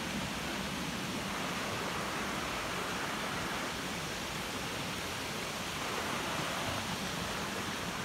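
Shallow creek water rushing steadily over rocks and small riffles.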